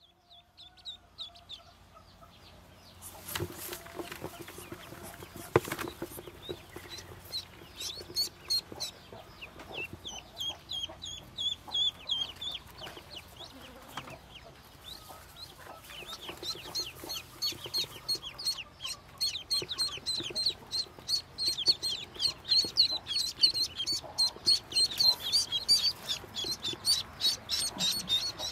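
A brood of newly hatched Muscovy ducklings peeping: many quick, high chirps that grow denser and louder in the second half. There are two sharp knocks a few seconds in.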